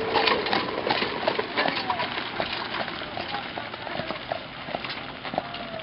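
Hooves of a draft horse clip-clopping in a steady walk as it pulls a wagon, growing fainter as it moves away.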